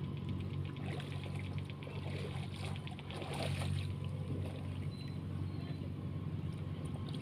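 Small waves lapping against a rocky shoreline over a steady low engine drone. A run of quick light clicks and rattles comes between about one and four seconds in, as a fish is lifted from the water on the line.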